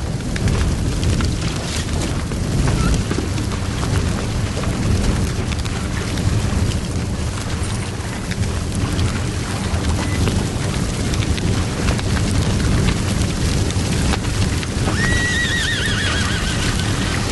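A dense, steady din, which fits a large pyre fire and horses moving about, with a horse whinnying about fifteen seconds in.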